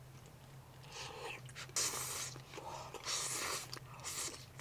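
Spaghetti being slurped off chopsticks in several short slurps, the strongest a little under two seconds in, about three seconds in and about four seconds in, over a faint steady low hum.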